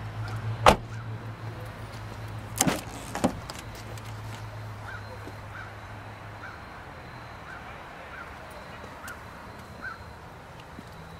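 A car door on a 2013 Hyundai Santa Fe Sport being shut with a sharp knock about a second in, followed by two more knocks about two seconds later. A low steady hum fades out partway through, and a run of faint short chirps comes at regular intervals.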